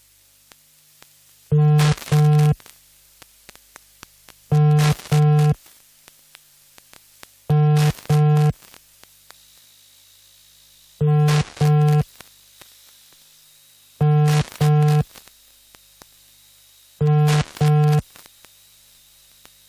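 Telephone ringback tone on an outgoing call that is not yet answered: a buzzy double ring repeated about every three seconds, six times.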